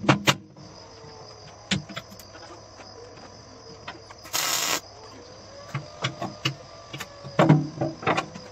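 A short welding burst on the steel smoker box: one even, crackling-hiss arc lasting about half a second, a little before halfway through, like a tack weld. Scattered knocks and clanks of steel come before and after it, with a louder cluster of knocks near the end.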